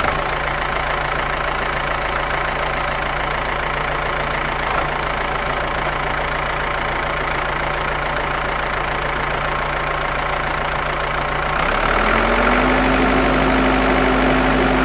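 A motor running steadily with an even hum; about twelve seconds in it speeds up, its pitch rising and the sound getting louder.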